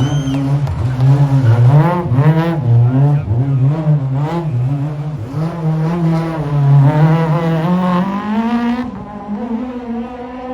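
Rally car engine revving hard, its pitch rising and falling over and over as the throttle is worked, then climbing once more and dropping away near the end.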